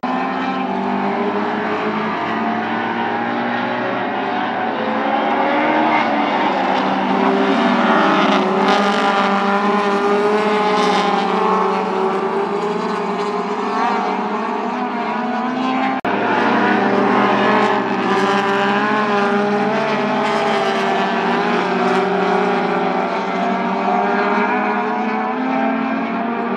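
A pack of four-cylinder mini stock race cars at racing speed: several engines overlap, rising and falling in pitch as they lift and accelerate. The sound swells louder twice as the pack comes by.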